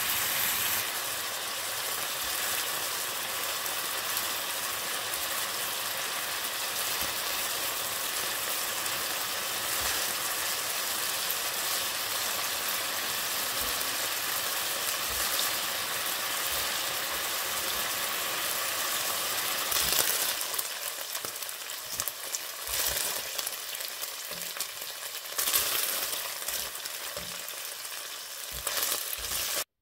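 Food sizzling as it fries in a hot pan, with the knocks and scrapes of a utensil stirring it. The sizzle grows more uneven in the last third and cuts off suddenly at the end.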